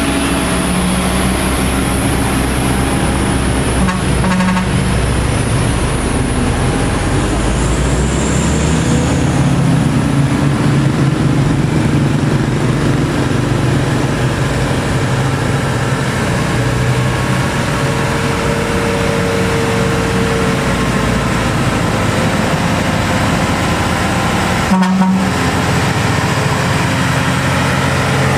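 Heavy diesel trucks running hard up a steep grade, their engines drowning out everything else. The sound drops out for an instant about 25 seconds in.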